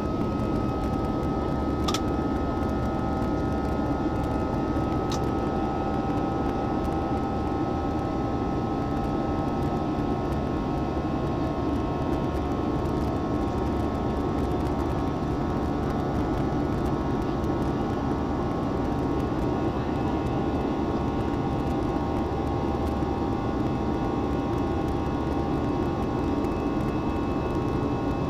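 Cabin noise of a jet airliner in its climb after takeoff, heard from a window seat: a steady drone of the turbofan engines and rushing airflow, with a faint steady whine over it. A single sharp click about two seconds in.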